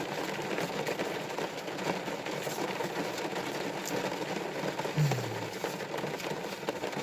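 Steady rain falling, an even hiss with faint scattered ticks. About five seconds in there is a brief low falling sound.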